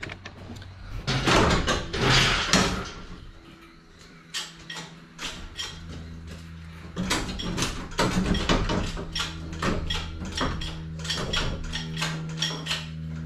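Engine-removal work on a car: a rush of noise about one to three seconds in, then a motor starting about five seconds in and running steadily with a low hum, with repeated metallic clanks and knocks over it.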